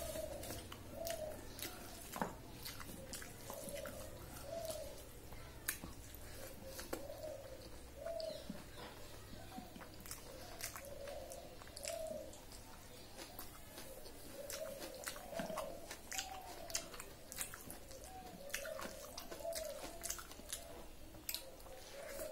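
Close-up chewing and wet mouth sounds of someone eating rice and curry by hand, with many soft clicks and smacks. A bird coos over and over in the background, about once or twice a second.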